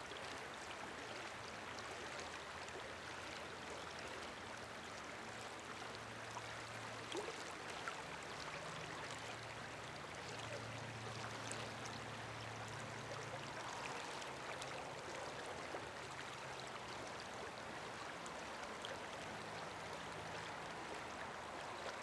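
Faint, steady rush of a flowing river running past.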